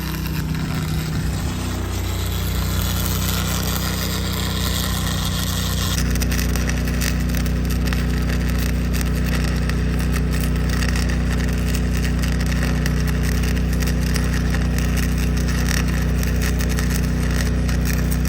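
An engine-driven arc welder running steadily under the crackle and hiss of a stick-welding arc, a root pass being laid with 6011 rod. About six seconds in, the engine note steps up and grows a little louder.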